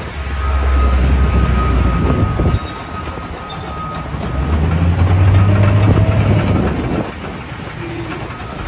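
Heavy military bulldozer's diesel engine rumbling as it drives, swelling louder twice, with a thin steady squeal over the first half.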